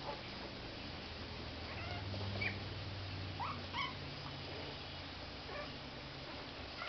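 Three-week-old puppies playing, letting out about half a dozen brief high-pitched squeaks and whimpers, over a low steady hum.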